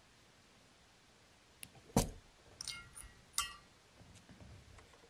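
Soldering iron set down in its metal stand: a knock about two seconds in, then two clinks with a metallic ring, faint handling and a sharp click near the end.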